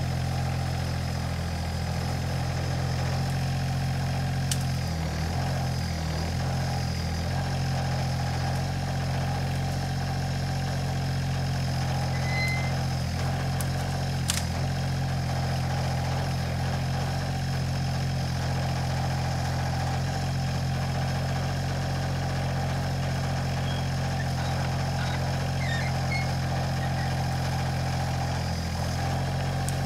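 The Alstor 834 mini forwarder's 3-cylinder diesel engine running at a steady speed while powering its hydraulic crane, with two short sharp clicks, one about four seconds in and one near the middle.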